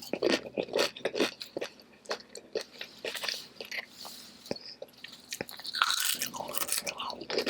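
A person chewing a mouthful of burrito close to the microphone, with many irregular sharp mouth clicks and short chewing noises.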